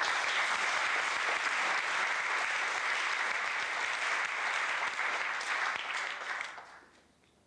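Applause from a crowd, starting suddenly and dying away near the end.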